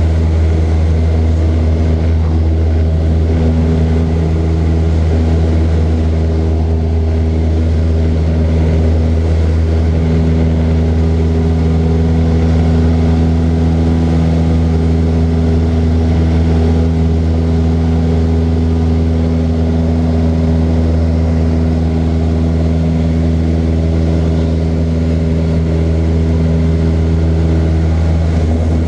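Light propeller aircraft engine running in flight: a loud, steady, even drone that holds its pitch throughout.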